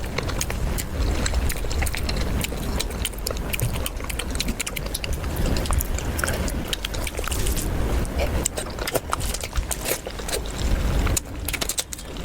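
Close-miked eating: chewing and crunching food, a dense run of crisp, irregular crunches and clicks.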